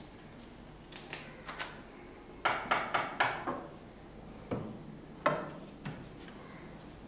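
Sharp wooden knocks and clatter at a door: a few light clicks, then four quick loud knocks a little over two seconds in, and two more single knocks later.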